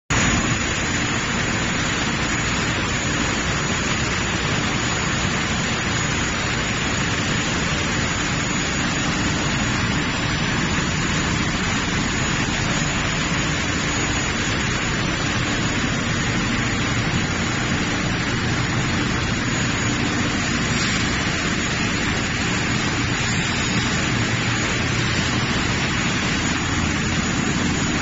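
Twin-screw food extruder line running: a loud, steady, even machinery noise of motors and drives, with no change in pitch or level.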